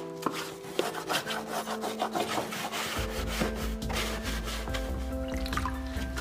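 Stiff brush scrubbing dry grass clippings off the underside of a Husqvarna Automower robotic lawn mower, in quick repeated scratchy strokes.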